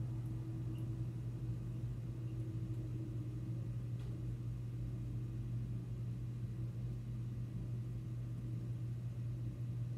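Steady low hum of an unattended room, with no events beyond a faint tick about four seconds in.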